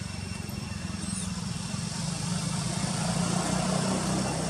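A steady low mechanical rumble, like an engine running, getting a little louder over the last couple of seconds, with thin steady high whines above it.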